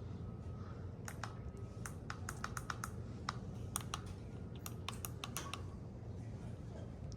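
Hunter Original ceiling fan running with a steady low hum. Over it, from about a second in until past the middle, comes a quick, irregular run of light clicks.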